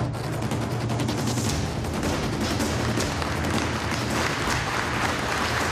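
Crowd applause: many people clapping together, dense and steady, growing fuller about four seconds in.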